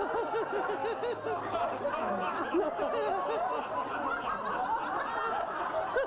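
A roomful of people laughing together, many voices overlapping. One person's quick, rapid ha-ha-ha stands out in the first second.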